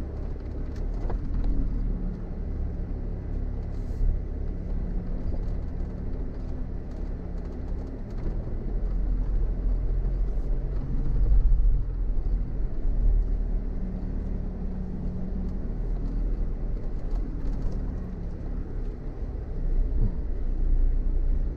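Car engine running at low speed on a rough off-road track, heard from inside the vehicle: a steady low rumble with an engine hum that rises and falls slightly, and a few faint knocks.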